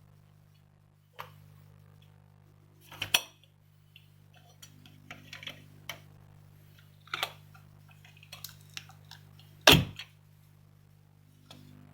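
Small metal tools clinking and tapping at a repair bench in a series of irregular sharp clicks, with two louder knocks, one about three seconds in and one near ten seconds. A steady low hum runs underneath.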